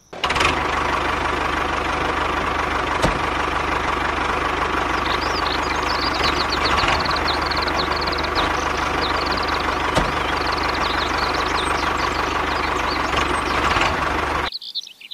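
Tractor engine running steadily with a knocking chug, with high chirping over it from about five seconds in. It starts and cuts off abruptly.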